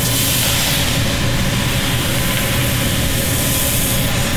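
Thin crepe batter sizzling in a smoking-hot oiled pan as it is ladled in and swirled: a steady hiss over a steady low hum.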